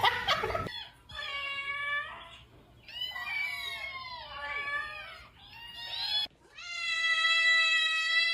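Domestic cat meowing in four long drawn-out calls; the second wavers up and down in pitch, the third is short, and the last is held long and steady.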